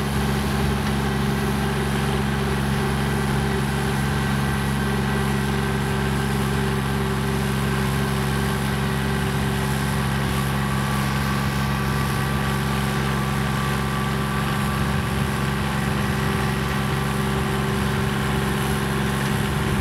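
Kubota GL321 compact tractor's engine running steadily under load while its rear-mounted rotary tiller cuts and churns the turf and topsoil.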